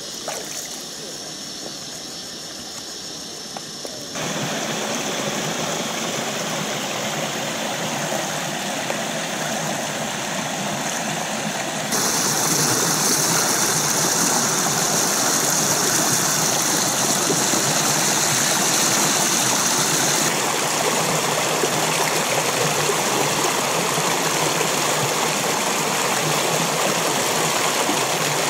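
Shallow stream rushing over rock ledges: a steady noise of flowing water. It grows louder about four seconds in and again about twelve seconds in, then eases slightly after about twenty seconds.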